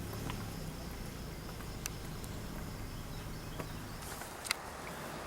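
Quiet outdoor ambience with faint insect chirping over a low background rumble, broken by a couple of sharp clicks, the loudest about four and a half seconds in.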